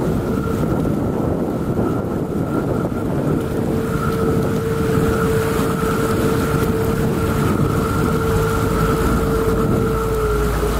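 Boat under way on a canal: water rushing from the wake and wind buffeting the microphone, with a steady motor whine that dips slightly in pitch near the end.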